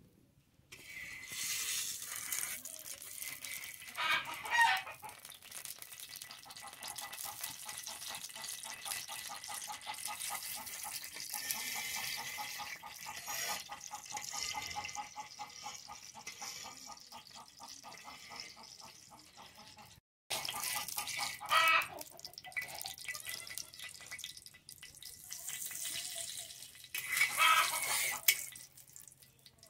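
Oil sizzling steadily in a flat iron pan over a wood fire, with a chicken clucking loudly three times: a few seconds in, past the middle, and near the end.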